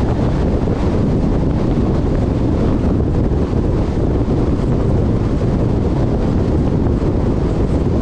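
Steady low rumble of wind and road noise from a car driving at highway speed, with wind buffeting the microphone.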